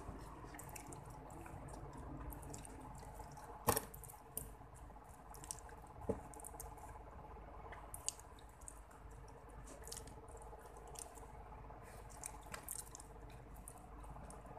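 Soft, wet eating sounds: chewing and small mouth clicks, with a few sharper clicks of a metal fork against the cardboard food tray, the loudest a few seconds in.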